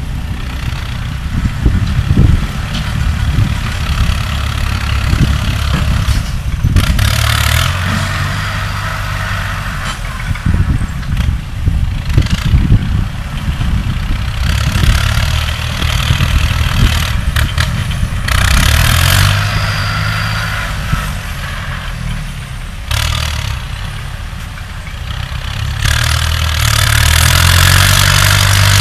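Diesel engine of an earth-moving machine running as it works soil, a steady low rumble that grows louder and harsher in several spells of a second or two.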